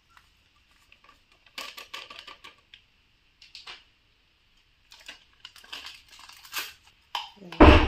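Crinkling and tapping of a foil spice packet as kebab masala powder is shaken out into a stainless steel pot, in short scattered bursts; one louder thump near the end.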